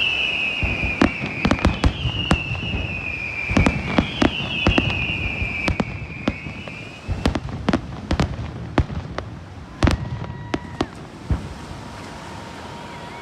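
Fireworks going off: a rapid run of sharp bangs and cracks, with a high wavering whistle through the first half. The bangs thin out toward the end.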